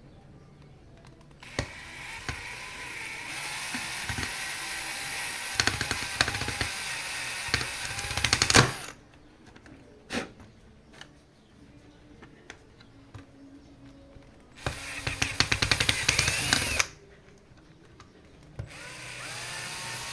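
Cordless drill-driver driving screws, running in three spells: one long run of about seven seconds, then two short runs near the end, its whine rising and falling in pitch as it works.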